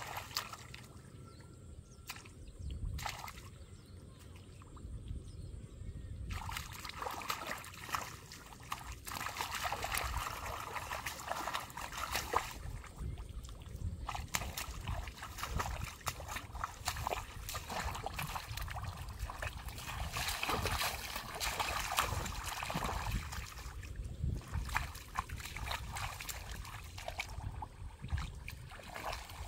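Shallow muddy water sloshing and splashing irregularly as hands grope through it and legs wade, feeling for fish in a drained rice paddy. There are a few quieter pauses.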